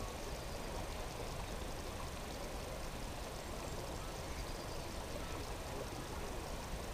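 Steady outdoor ambience: an even hiss with a low rumble underneath, with no single sound standing out.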